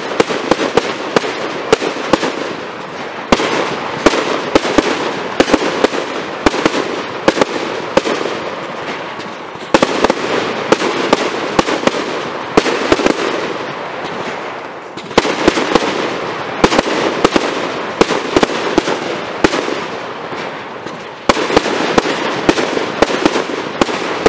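Aerial fireworks display: rapid bangs of bursting shells over a continuous crackle. The firing comes in waves, with a sudden louder volley about every six seconds.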